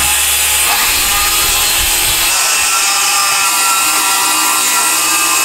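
DeWalt cordless circular saw running steadily as it cuts through a plywood sheet, a continuous high whine of the blade in the wood.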